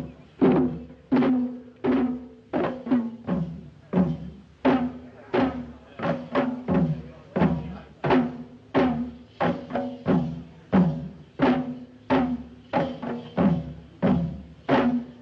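Sri Lankan drums beaten in a steady, driving rhythm, about three strokes every two seconds, each stroke carrying a short tone that drops in pitch.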